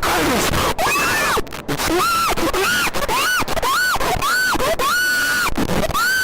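Deliberately overdriven fake Emergency Alert System alarm audio: a string of short wailing cries, nearly two a second, each rising quickly, holding and dropping, over constant harsh noise at a steady, very high level.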